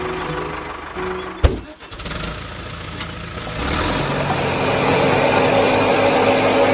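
Tractor engine idling, a sharp knock about a second and a half in, then the engine starting and running louder and steadily from about four seconds on.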